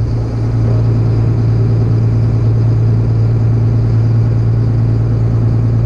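John Deere 7800 tractor's six-cylinder diesel engine running steadily, heard from inside the cab while the tractor backs up slowly in a powershift reverse gear.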